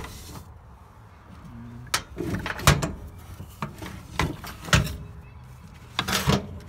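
A series of separate knocks and clunks, half a dozen or so spread irregularly, as power tools and their hard cases are picked up, turned over and set down.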